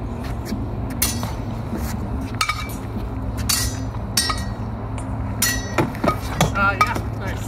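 Steel swords striking each other and a frying pan used as a buckler: sharp metallic clinks, each with a short ring. They come singly at first, then in a quick run of strikes near the end.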